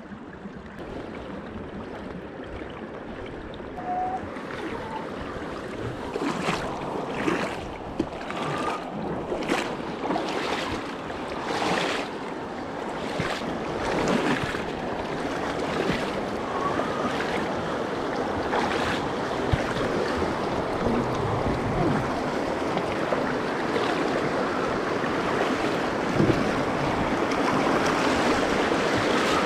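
Rushing water of a shallow, rocky river rapid, growing louder as the pontoon boat is hauled up into it, with a run of splashes through the middle part.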